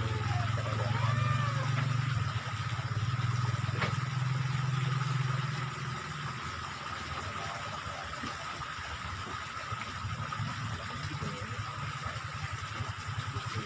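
Water running in a small ditch, with a low steady hum that fades about six seconds in and a faint steady high tone throughout.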